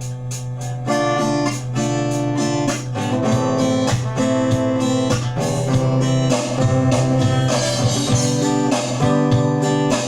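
Instrumental introduction of a sertanejo-style song: guitar strumming a steady rhythm over a held bass note, with the fuller band coming in about a second in.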